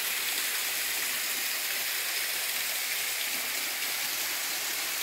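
Steady, even rush of falling water from a waterfall.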